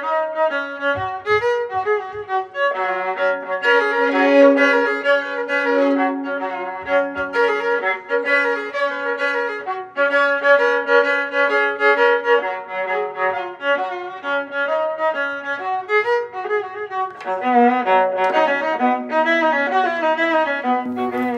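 Violin music: a melody with vibrato over held lower notes.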